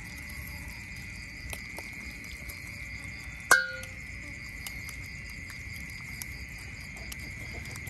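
Insects droning steadily on one high note, with a fainter pulsing buzz above it and scattered faint clicks. About three and a half seconds in, one short, sharp animal call cuts through, the loudest sound.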